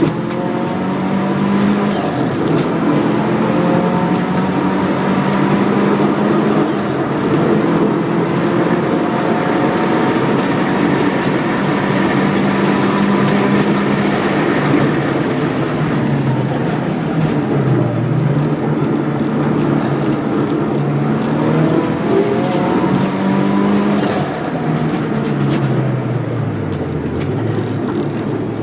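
Subaru WRX's turbocharged flat-four engine running hard under race conditions. Its pitch holds fairly steady, then dips sharply and climbs back up twice, near the middle and near the end.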